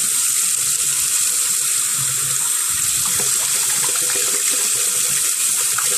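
Water running steadily from a sink tap, splashing over a toner waste bin from a Samsung CLX-3175FNK colour laser printer held and turned in the stream to rinse the toner out, and draining into the basin.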